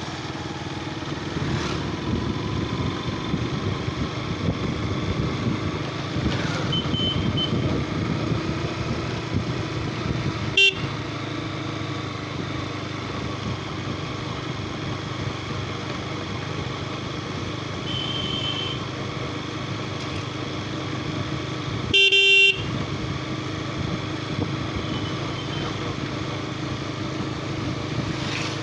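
Motorcycle running on a road in traffic, with steady engine and road noise. A sharp click sounds about ten seconds in, and a loud vehicle horn blasts briefly about two-thirds of the way through, with a few faint short horn toots around it.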